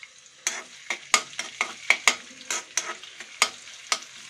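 Steel ladle stirring in a metal kadai, a rapid irregular run of clinks and scrapes against the pan, over a light sizzle of grated ginger, dried red chillies and mustard and cumin seeds frying in hot oil for a tempering.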